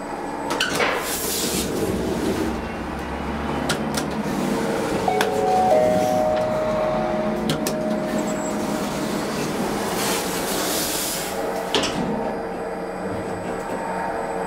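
The car of a machine-room-less traction elevator in operation: its automatic sliding doors run with a rushing hiss twice, a few sharp clicks sound, and about five seconds in there is a short held tone.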